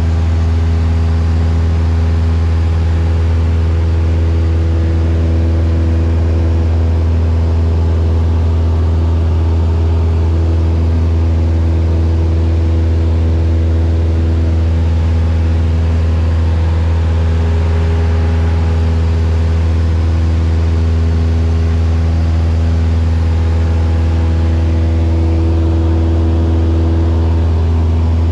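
Cabin noise of a Cessna single-engine light aircraft in flight: the piston engine and propeller drone steadily, a strong deep hum with a stack of even overtones above it.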